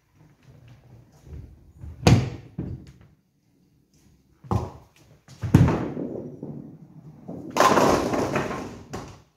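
Nine-pin bowling: a couple of sharp knocks, then a heavy ball lands on the lane with a loud thud and rolls down it with a fading rumble, and about two seconds later it crashes into the full set of pins with a loud clatter of falling pins.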